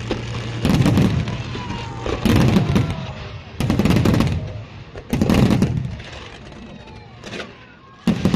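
Fireworks display: four heavy shell bursts about a second and a half apart, each a boom that fades away, then a few sharper cracks near the end.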